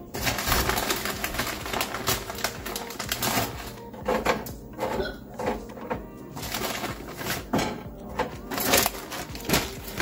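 Rustling and irregular clicking as food is taken from a plastic snack bag and laid out on an air fryer oven's rack, over background music.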